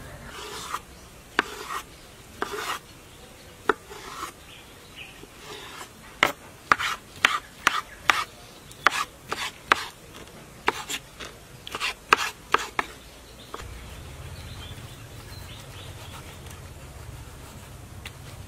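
Kitchen knife cutting aloe vera leaf and dicing its gel on a wooden cutting board: a string of sharp knocks of the blade on the board, scattered at first, then coming quickly for several seconds. Near the end the chopping stops and a low steady hum is left.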